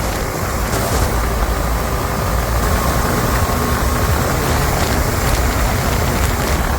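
Wind rushing over the microphone with the engine of a Bajaj Dominar 400 motorcycle underneath, a single-cylinder, ridden at speed; the noise is loud and steady.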